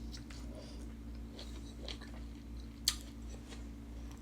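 A person chewing a last mouthful of fried food with small crunching ticks, and one sharp click about three seconds in.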